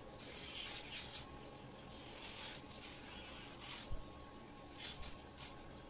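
Dremel rotary nail grinder filing a dog's nails, heard faintly: several short rasping bursts as the spinning bit touches the nail, over a faint high motor whine that comes and goes.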